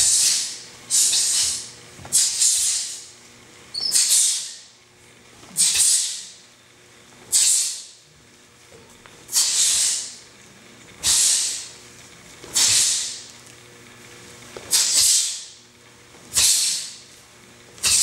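Group of taekwondo students hissing out a sharp breath together with each move of a taekwondo pattern, about one hiss every one and a half seconds, some coming in quick pairs. A faint steady hum sits underneath.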